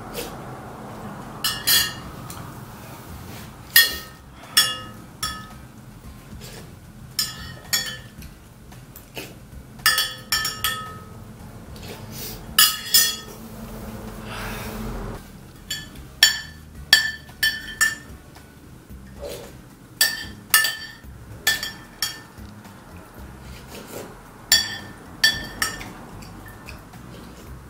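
Metal utensils clinking against a bowl while eating noodle soup: many sharp, ringing clinks at irregular intervals.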